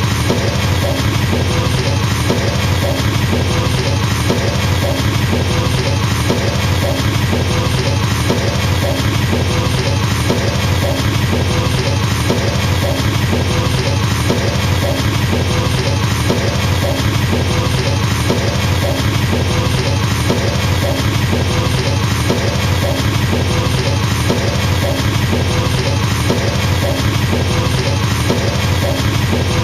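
Drum kit's double bass pedals playing a fast, unbroken stream of kick-drum strokes, the 'machine gun' double-bass pattern, steady throughout.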